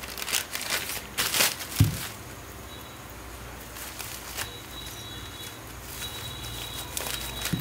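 Rustling and handling noises of small objects being moved about, with a dull knock about two seconds in and more rustling near the end. A faint high steady tone comes and goes in the quieter middle.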